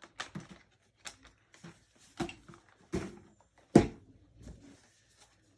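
Handling noise from cardboard advent calendars and their small contents: a string of short knocks and clicks, about one a second, the loudest a sharp knock just under four seconds in.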